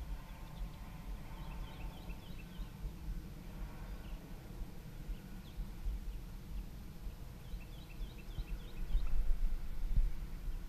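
Outdoor ambience: wind buffeting the microphone as a low rumble, gustiest near the end, with a bird giving two quick runs of short, falling chirps, about a second in and again about eight seconds in.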